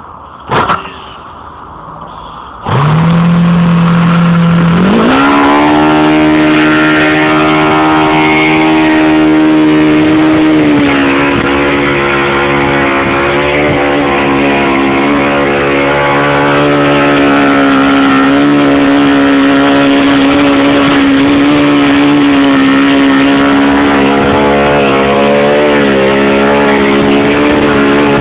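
ASP FS-30 four-stroke model glow engine, converted to control line with a fixed venturi and turning a 10x6 propeller, starting up with an electric starter. A few clicks come first, then about three seconds in the engine comes on at a lower pitch, climbs about two seconds later and runs steadily at full throttle with a slight waver in pitch.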